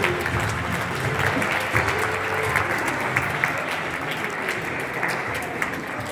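Small seated audience applauding, the clapping slowly dying down.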